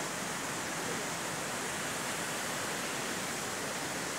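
Steady rush of falling water from a waterfall, an even hiss with no breaks.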